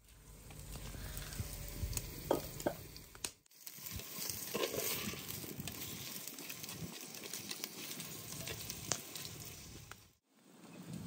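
Food frying and sizzling in hot fat, with a few sharp clicks and stirring scrapes. The sound breaks off briefly twice.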